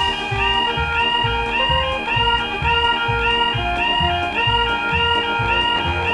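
Background music with a steady bass beat and plucked, guitar-like notes, over a bright high note that repeats about twice a second.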